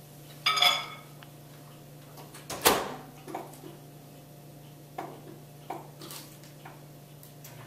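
Over-the-range microwave being used: a short ringing clink about half a second in, the door shut with a loud knock about 2.7 s in, then a few light clicks as the keypad buttons are pressed. A steady low hum runs underneath.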